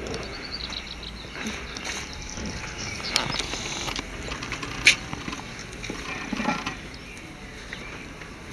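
Scattered handling noises as a firefighter's rope line is worked and tied onto a metal branch pipe: light rustles and clicks, with one sharp clink about five seconds in.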